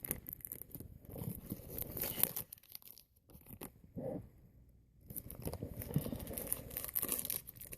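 Plastic snack wrapper of Fruit Roll-Ups mini rolls being torn open and handled, crinkling, with a pause about three seconds in before the crinkling resumes about two seconds later.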